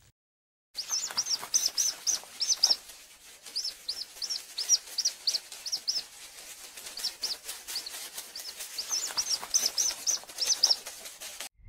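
Birds chirping: many short, high-pitched chirps in quick runs, with faint clicks and scratches among them. They start after a moment of silence and cut off suddenly near the end.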